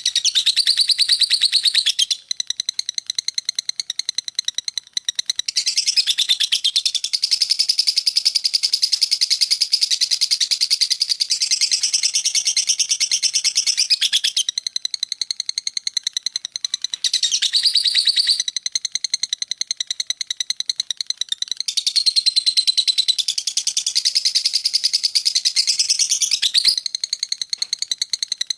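Lovebird's long ngekek: a continuous, very rapid, high-pitched chattering trill that swells louder in several long stretches and eases to softer chatter between them.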